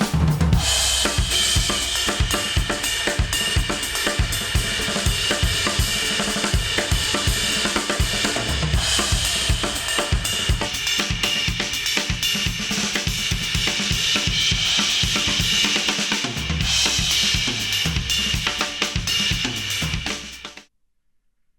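Drum-heavy music with kick, snare, hi-hat and cymbals, played through studio headphones and picked up by an artificial ear simulator. It stops abruptly near the end.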